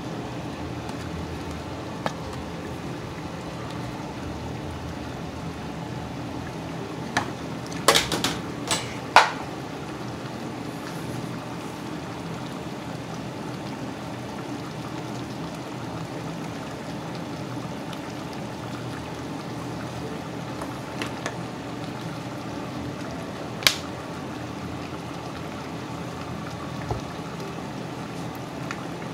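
Chicken and pork pieces simmering in their juices in a large pot, a steady bubbling hiss. A plastic spoon clacks against the pot several times about eight seconds in and once more near the end.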